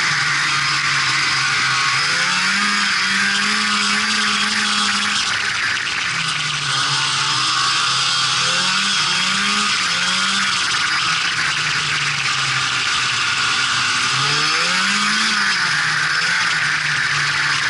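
Polaris Indy Sport 340 snowmobile's two-stroke engine running under way, over a steady hiss. The engine pitch rises about two seconds in and drops back near five seconds, blips up and down a few times around eight to ten seconds, and swells and falls again near fifteen seconds.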